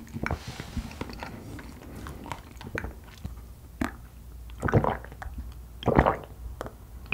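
Close-miked mouth sounds: soft chewing of a strawberry, then drinking from a glass mug with two loud gulps about a second apart in the second half.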